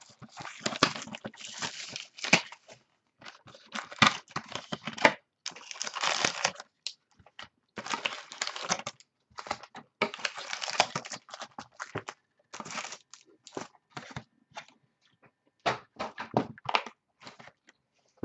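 Plastic wrap and cardboard rustling and crackling in irregular bursts as a sealed Bowman Sterling football card box is unwrapped, its lid opened and the packs inside handled.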